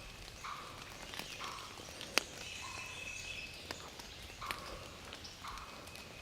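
Quiet woodland ambience: scattered rustles and a few sharp snaps, as in dry leaf litter, with a high, steady, whistle-like note lasting about a second midway through.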